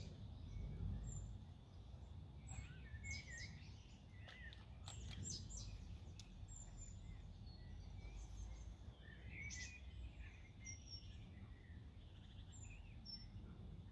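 Songbirds chirping and calling on and off over a low, steady outdoor background rumble.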